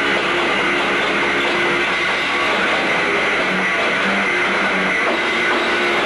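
Heavy metal band's electric guitar playing loud through the stage amplifiers at a sound check, with some held notes.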